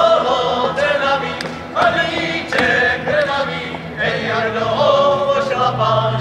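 A group of voices singing a folk song in phrases of about a second each, with a fiddle accompanying.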